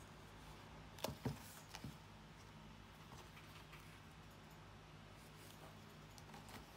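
Quiet handling of a softcover stone-paper notebook: two sharp taps about a second in, then faint rustles as its elastic band is lifted and the cover opened, over a low steady hum.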